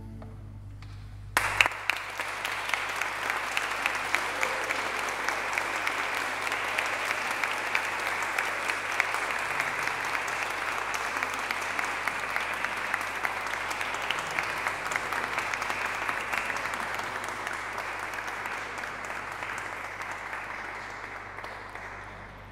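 Applause from a small audience, starting suddenly about a second and a half in, with many hands clapping steadily and then tapering off near the end.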